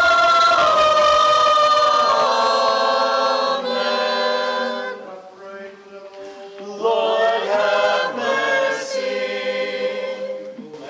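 Church choir singing a sung response a cappella in several-part harmony, in the Ukrainian Catholic liturgical style. A long held phrase fades about five seconds in, and a second phrase starts about seven seconds in.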